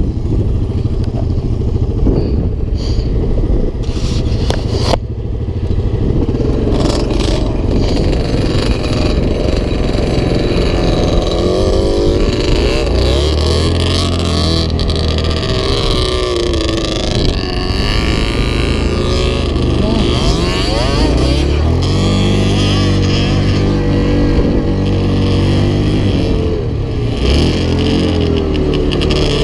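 Yamaha Grizzly 700 quad's single-cylinder four-stroke engine running under way, its pitch climbing and falling as the rider opens and eases the throttle. Other quads' engines are heard ahead.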